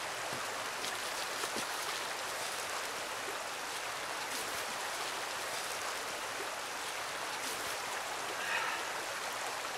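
A creek flowing, heard as a steady, even rush of running water.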